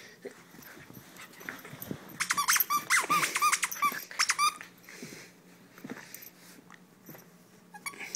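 A quick run of about ten high squeaks, each rising and falling in pitch, from about two seconds in to past halfway, during tug-of-war play with a German Shepherd puppy. Softer scuffling before and after.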